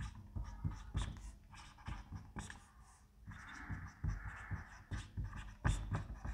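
Marker pen writing on a whiteboard: a run of short strokes and taps, with one longer, steadier stroke about three seconds in.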